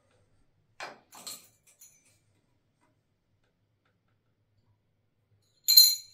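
Two soft clicks about a second in, then a louder sharp clack with a brief ring near the end: hard parts being handled while a toilet seat is fitted.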